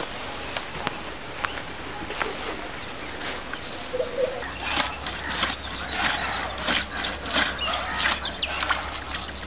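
Outdoor rural ambience with birds chirping. From about halfway the chirps and clicks come thicker over a steady low hum, and near the end there is a fast, even trill of high chirps.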